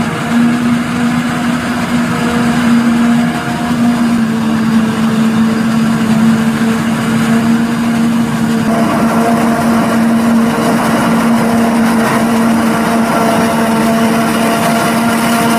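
Claas Jaguar 870 self-propelled forage harvester chopping maize, with a Claas tractor running alongside: a loud, steady machine drone with a constant hum. The balance of tones shifts slightly about nine seconds in.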